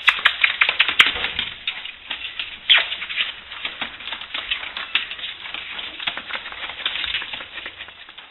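Airedale terrier puppies' claws clicking and pattering on a hard floor as they scamper about: a dense, irregular clatter of small sharp clicks, with a louder knock about a second in and another near three seconds.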